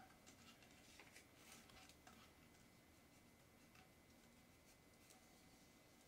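Near silence, with a few faint ticks and rustles, mostly in the first two seconds, from hands rubbing vinyl transfer tape onto a plastic bottle.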